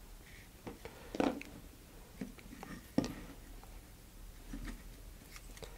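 Faint handling sounds of a small wooden spacer being fitted by hand against a fiberglass bracket: a few soft taps and clicks, with one sharper click about three seconds in.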